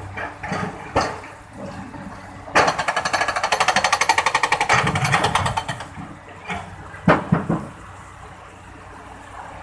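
Excavator at work: a fast mechanical hammering rattle, about a dozen strokes a second, for roughly three seconds in the middle, with a few single knocks before and after it.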